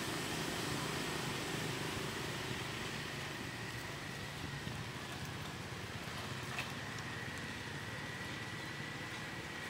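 Steady outdoor background rumble, with a faint, thin, steady high tone over it.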